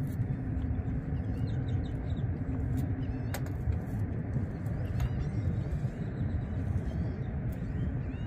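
Wind buffeting the microphone in a dense low rumble, with faint chirping bird calls scattered through it. A low steady hum fades out about three and a half seconds in, and there are a couple of sharp clicks.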